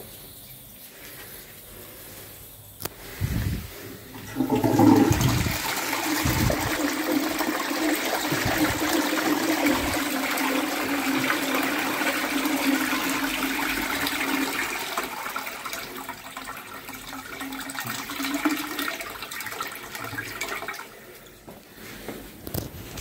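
Flushometer on a Standard Stanway toilet pan flushing. A click and a knock come about three seconds in. Then water rushes through the valve and bowl with a steady hum under the hiss for about ten seconds, easing off and stopping shortly before the end.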